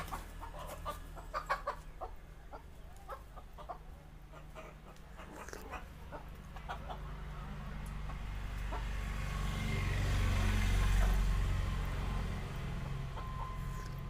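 Chickens clucking in short, scattered calls, over a low steady rumble that swells for a few seconds in the second half.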